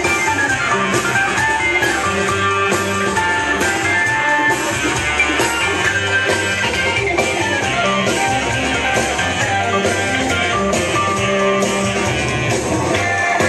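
Loud music with guitar over a steady drum beat, played through a PA speaker for a breaking round.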